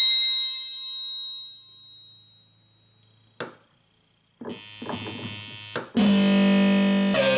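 Rhodes Chroma analog polyphonic synthesizer playing demo patches: a bright note dies away over about three seconds, a short click, then a few short plucked-sounding notes and, about six seconds in, a loud held note, with another note entering near the end.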